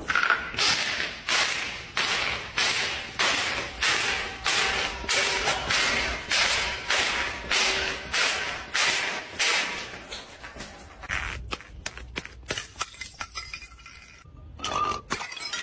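A full bottle tumbling down marble stairs, striking each step in a steady series of knocks, about three every two seconds. After about ten seconds, lighter and quicker irregular clicks and clinks follow as a glass bottle rolls down stone steps.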